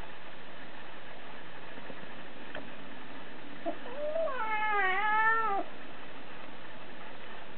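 A kitten meowing once, a drawn-out call of about a second and a half that rises and then bends down at the end.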